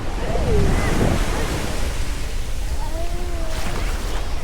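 Ocean surf washing onto a beach, a steady rushing hiss, with wind buffeting the microphone in a low rumble.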